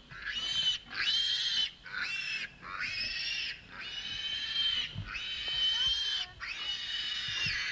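Pigs squealing: a string of long, high squeals, one after another with short breaks between them.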